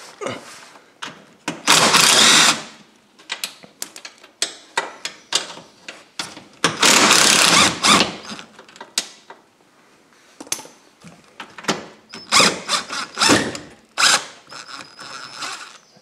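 Cordless drill backing screws out of a popup camper's corner lift-tube brackets, spinning in short runs of one to two seconds, with sharp clicks and clatter between the runs.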